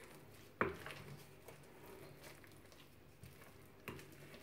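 Wooden spoon stirring thick carrot cake batter in a glass mixing bowl, with soft scraping and the spoon knocking against the glass, sharply about half a second in and again near the end.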